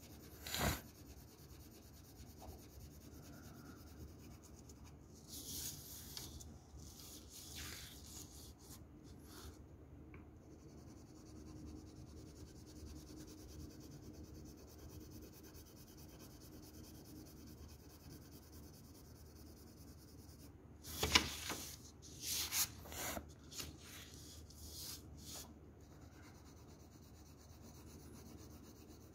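Graphite shading pencil rubbing quietly on paper in steady back-and-forth strokes, blending dark tone. A few brief, louder scratchy strokes come about six seconds in and again around twenty-one to twenty-five seconds in.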